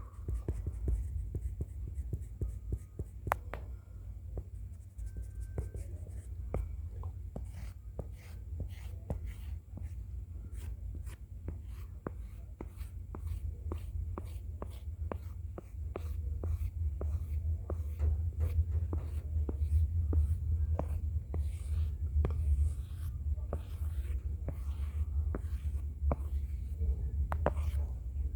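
Close-up scratching strokes of a drawing tool, like a pencil sketching, full of small clicks and ticks over a low rubbing rumble. The rumble gets louder a little past halfway through.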